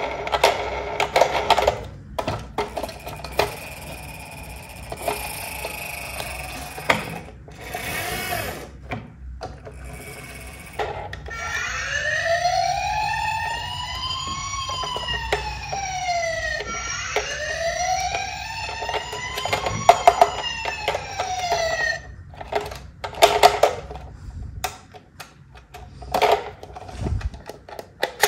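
A toy ambulance's electronic siren wailing, its pitch rising and falling slowly twice over about ten seconds from roughly the middle of the stretch. Before and after it come plastic clicks and rattles from the toy being handled.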